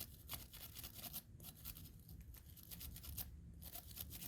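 Small stiff brush, most likely a wire brush, scrubbing quickly back and forth over an oil-soaked car door lock cylinder to loosen dirt and grime, in rapid scratchy strokes with two short breaks.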